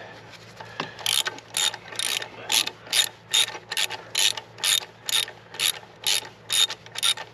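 Hand ratchet wrench with a Torx (star-shaped) socket clicking in even strokes, about two a second, starting about a second in, as the bolts of a Mercedes E350 CDI's EGR valve are backed out. The bolts turn easily.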